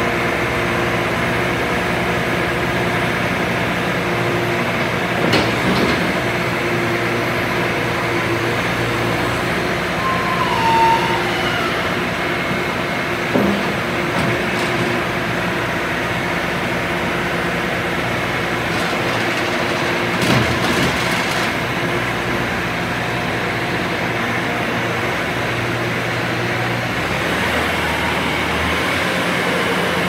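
The 2018 Bobcat S590 skid steer's 2.4 L four-cylinder diesel running steadily while the lift arms and bucket are worked and the machine is driven. A few brief knocks and a short squeak come through over the engine.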